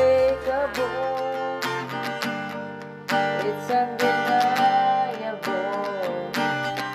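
Music: an acoustic guitar strummed in a steady rhythm, with a voice singing a melody over it, including one long held note in the middle.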